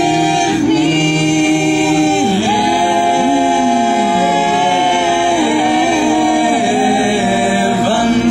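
Mixed vocal jazz ensemble of men and women singing sustained chords together, the held notes moving to new chords every second or two.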